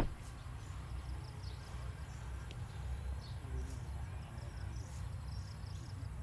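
Rural outdoor background: a steady low rumble with faint high chirps of birds and insects, opening on a brief loud thump.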